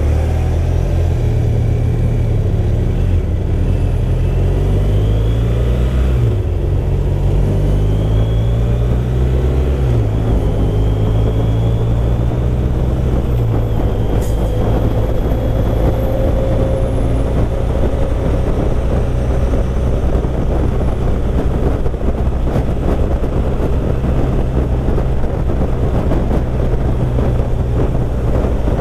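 2014 BMW R1200RT's boxer-twin engine pulling through the gears, its pitch climbing and dropping back at each upshift about every three to four seconds, then running steadily at cruising speed, with wind rush.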